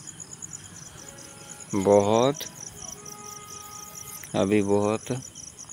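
Crickets chirping steadily in the background, a rapid, even, high-pitched pulsing, under a man's voice that is loudest about two seconds in and says a word near the end.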